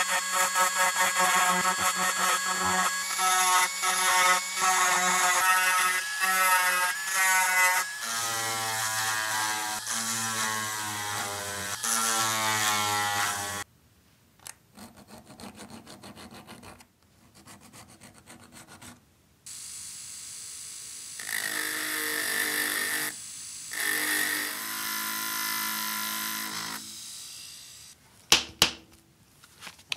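Handheld rotary tool with a small grinding bit running against rusted metal, its motor whine stopping, restarting and shifting pitch as the bit is pressed on and lifted off, with a quieter stretch midway and another steady run after it. A few sharp clicks near the end.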